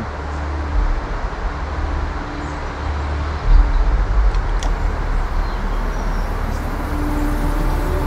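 Low rumbling noise on a clip-on microphone, with a sharp click about halfway through.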